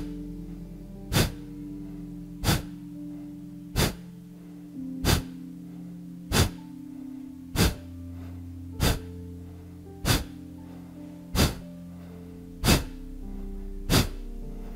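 Kapalbhati breathing: a steady run of short, forceful exhalations through the nose, one about every 1.3 seconds, twelve in all. Soft background music with held tones plays underneath.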